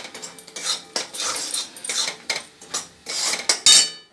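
A steel spatula scrapes and stirs in repeated strokes against a wok of thick jaggery syrup mixed with roasted peanuts and sesame. A louder metallic clatter with a sharp knock comes near the end.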